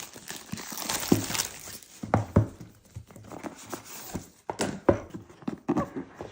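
Cardboard packaging being opened and handled by hand: rustling with irregular knocks and clicks as the box and its contents are moved about. The sharpest knocks come about two seconds in and again near five seconds.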